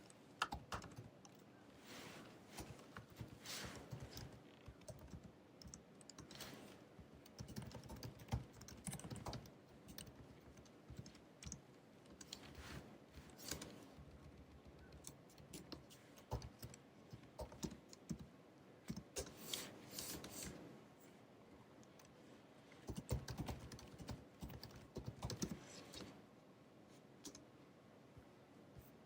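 Typing on the built-in keyboard of a 2019 16-inch MacBook Pro: quiet runs of key clicks in bursts, with short pauses between them and a longer pause near the end.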